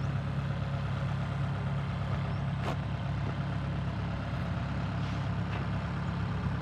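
Rice combine harvester's engine running steadily at idle, a low even hum, with one sharp click a little under three seconds in.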